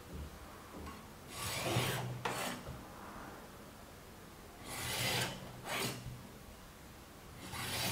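A cleaver cutting down through a sheet of floured dough onto a wooden board, with a wooden rolling pin slid across the dough between cuts: a few short scraping strokes, each under a second long.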